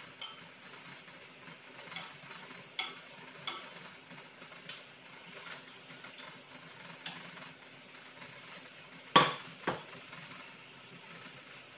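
Light clicks and clinks of kitchenware being handled, then a frying pan set down on an induction cooktop with two sharp knocks, followed by two short high electronic beeps as the cooktop's buttons are pressed.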